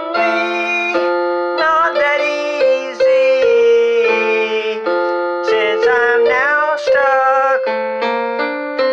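A man singing over a keyboard accompaniment of long held chords.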